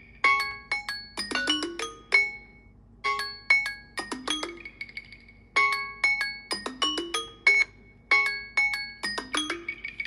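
Samsung Galaxy Z Fold 3 timer alarm ringing to signal the countdown has run out. It plays a short tune of bright, marimba-like struck notes that repeats over and over with brief pauses between the phrases.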